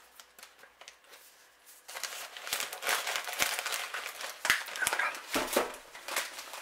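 Newspaper wrapping rustling and crinkling as it is pulled off a potted orchid, starting about two seconds in, with a few light knocks among the crackle.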